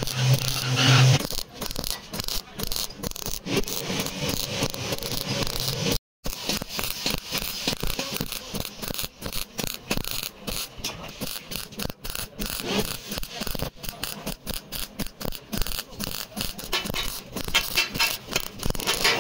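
MIG welding torch crackling and spitting as it lays a bead along a seam in thin sheet steel, the arc starting and stopping in an irregular run of crackles. A steady low hum sounds in the first second, and the sound cuts out completely for a moment about six seconds in.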